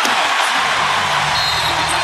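Arena crowd cheering loudly after a fast-break play.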